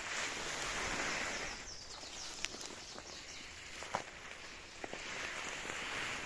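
Conifer branches and foliage rustling and brushing as someone pushes through dense undergrowth, in swells, with a few sharp twig cracks.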